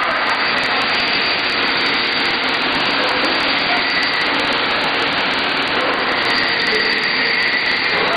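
Portable downpipe roll forming machine running: a steady, loud whine and hiss of its motors and rollers as the steel strip feeds through.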